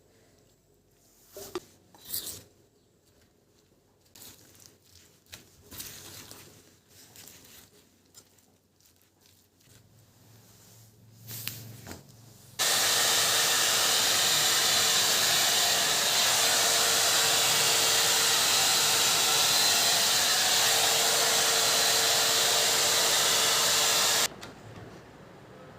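Soft handling clicks and rustles, then an AGARO hand-held hair dryer switched on about halfway in. It blows steadily with a motor hum for about eleven seconds, then cuts off abruptly.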